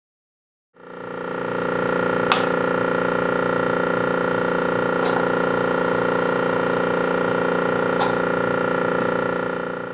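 Bailey MSV-25T pugmill running: a steady electric-motor hum made of several steady tones over a low rumble. Three sharp clacks come about three seconds apart as the hopper's feed lever is worked.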